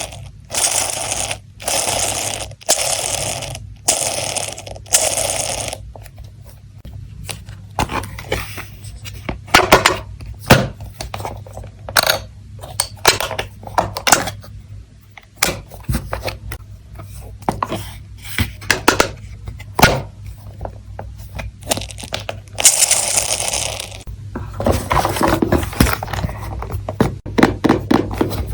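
Small stationery items being handled by hand: about six quick scraping or rubbing strokes, then many scattered light clicks and taps of small hard objects, another rubbing stroke, and a dense run of clicking near the end, over a steady low hum.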